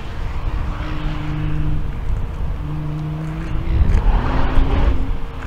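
Nissan GT-R's 3.8-litre twin-turbo V6 on a racetrack, its exhaust note held steady in two spells of about a second each, then rising in pitch and growing louder as the car accelerates about four seconds in.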